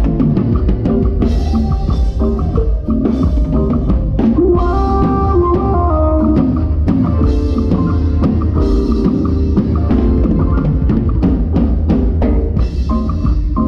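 Live band playing a song, the drum kit up front with a steady beat of kick, snare and cymbals under pitched melody instruments and bass.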